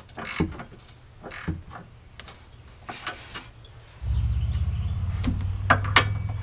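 Scattered metal clicks of a socket wrench and ratchet working a tow-hook bolt. About four seconds in, a steady low hum comes in, and a few ratchet clicks sound over it near the end.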